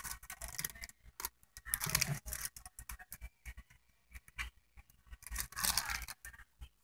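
Firecrackers packed in sawdust being handled: irregular rustling and scraping in short bursts, with scattered clicks.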